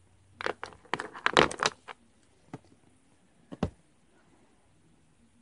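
Handling clatter of a plastic pony-bead cuff being moved and set down on a table: a quick run of clicks and knocks about half a second to two seconds in, then two single knocks.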